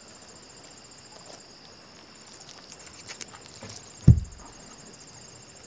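Insects trilling steadily in a high, pulsing buzz. A few faint clicks come about three seconds in, and a sudden dull low thump about four seconds in is the loudest sound.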